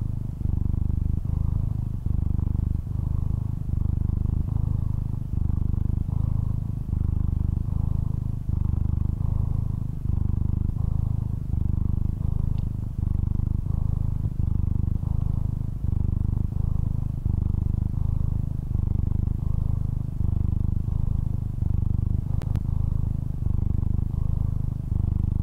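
Domestic cat purring close up: a steady low rumble that swells and dips with each breath, about once every second and a half.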